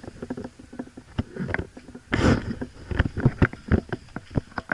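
Scattered sharp clicks and snaps of airsoft fire and BBs striking surfaces, coming irregularly a few times a second, with a short rushing noise about two seconds in.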